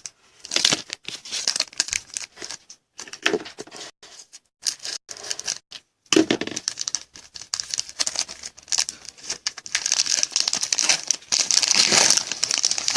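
Wrapper of a 2016 Donruss Optic football card pack being torn open and crinkled by hand: irregular crackling rustles, sparse at first and becoming dense and continuous about halfway through.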